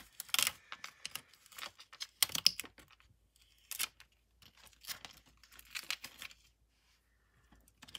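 Thin protective plastic film being peeled off the top of a replacement MacBook Pro battery pack: crinkling, tearing crackles in several bursts, dying away near the end.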